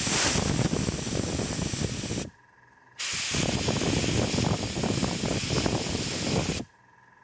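Dual-action gravity-feed airbrush spraying paint in a steady hiss. It cuts off sharply about two seconds in as the trigger is released, starts again a moment later, and stops near the end.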